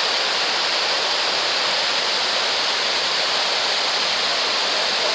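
Water pouring over a stepped river weir: a steady, even rush.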